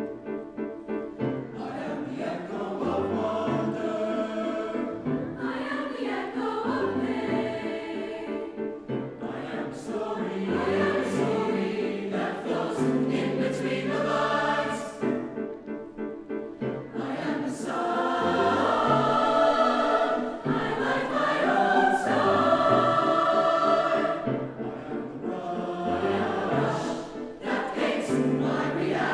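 A mixed-voice teenage choir singing a four-part SATB choral piece, with a louder passage in the second half.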